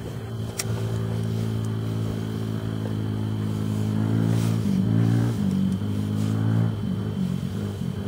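A motor engine running steadily, its pitch shifting a little around the middle. There is a sharp click about half a second in.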